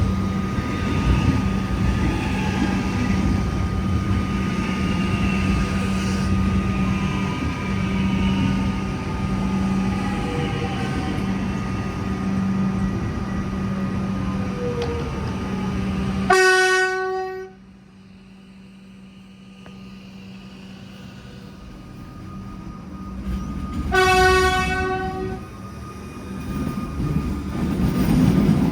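Alstom Comeng electric train's horn giving two short blasts, the first about two-thirds of the way in and the second about eight seconds later, a friendly horn greeting as the train departs. Before them the train hums steadily with whines sliding in pitch, and near the end rolling noise rises again as it moves off.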